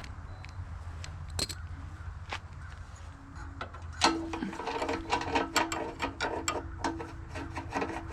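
Ratchet-type hand tool clicking rapidly from about four seconds in, amid scattered tool clicks, as the gas tank bolts of a Honda GX390 engine are tightened back down.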